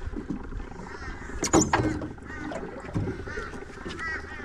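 A bird calling over and over in short arched notes, with a sharp knock about a second and a half in.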